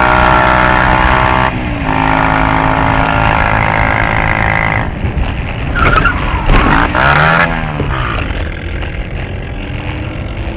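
Motor vehicle engine running hard at high, steady revs. A few seconds in, its pitch swings up and down as the revs change.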